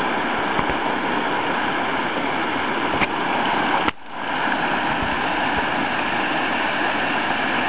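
Steady loud rush of whitewater from a breaking river wave, with a click about three seconds in and a brief sudden dip in the rush about a second later.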